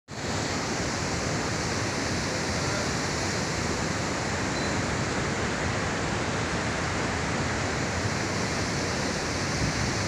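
Chitrakote Falls on the Indravati River, a wide waterfall swollen with muddy floodwater, running in full flow: a steady, unbroken rush of falling water.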